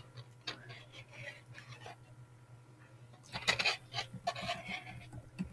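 Computer keyboard keys being typed, a few scattered clicks and then a short run of louder keystrokes about three and a half seconds in, over a steady low electrical hum.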